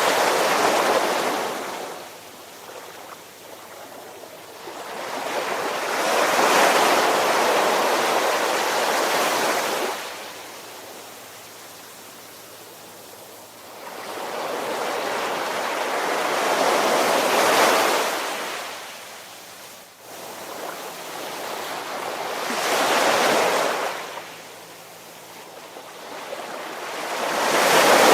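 Ocean waves washing in and ebbing away in slow, irregular swells, about five surges, each building over a few seconds and falling off.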